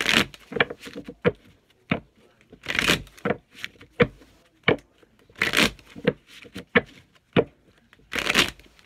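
A deck of tarot cards shuffled by hand: many sharp card snaps and taps, with a short rustling riffle about every three seconds.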